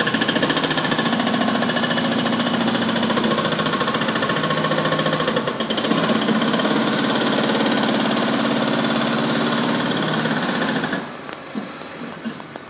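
Loud, rapid mechanical hammering from demolition machinery, starting suddenly and cutting off about eleven seconds in.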